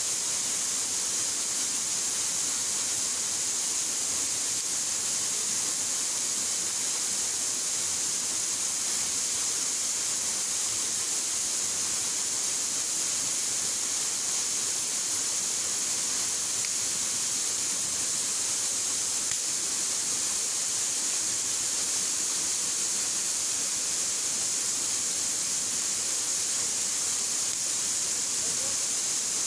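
Steady splashing hiss of thin waterfalls falling down a rock face into a pool, even and unbroken, with most of its sound high-pitched.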